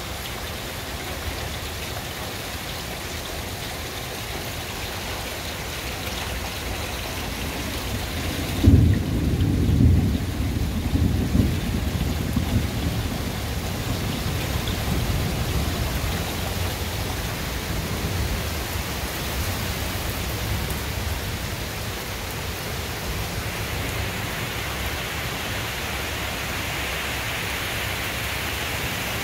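Steady rain with a sudden loud thunderclap about a third of the way in, rumbling on for a few seconds. Near the end the rain gets heavier.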